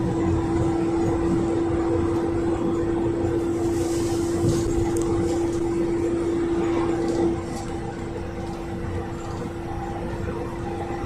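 Interior noise of a GAZelle Next minibus driving at speed: steady engine and road rumble with a constant droning whine, which drops in level about seven seconds in.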